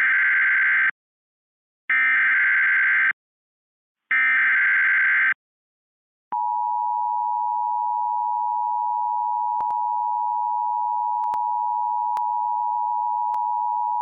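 Emergency Alert System tones for a flash flood warning: three roughly one-second bursts of SAME header data, then the steady two-tone attention signal held for about eight seconds, with a few faint clicks in it.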